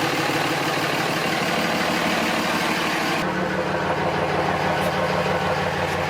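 A steady, engine-like mechanical hum, with an abrupt change in its tone about three seconds in.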